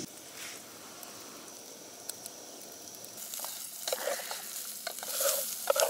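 Portable gas camping stove burning with a steady hiss. From about three seconds in, food sizzles in a metal pot on the flame, with a few knocks and clinks of the pot and its lid.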